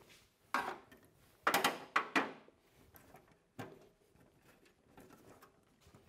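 Hoses and a hose clip being handled and loosened at the humidifier's cylinder base: a few short scraping knocks in the first two and a half seconds, a sharp click at about three and a half seconds, then faint small ticks.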